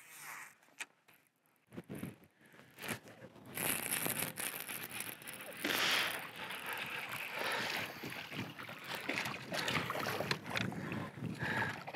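A hooked bass thrashing and splashing at the water's surface as it is reeled in toward the boat. It is a rough splashing noise that starts a few seconds in and carries on in uneven surges.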